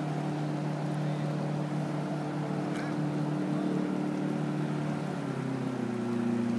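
A motorboat engine drones steadily over the rush of river water, and its note drops about five seconds in.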